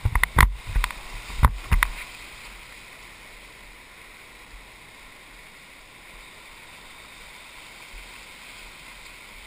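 River rapids rushing past an inflatable raft as it runs whitewater, with a few sharp knocks in the first two seconds and then a steady rush of water.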